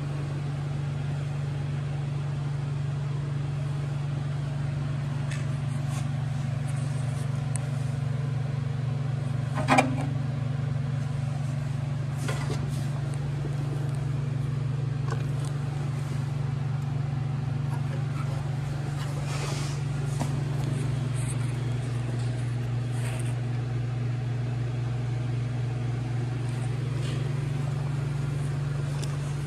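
A steady low hum from a running machine, with a single sharp click about ten seconds in.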